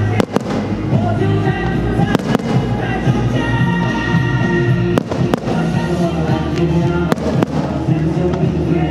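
Fireworks going off in pairs of sharp bangs, four pairs about two to three seconds apart, over loud music playing throughout.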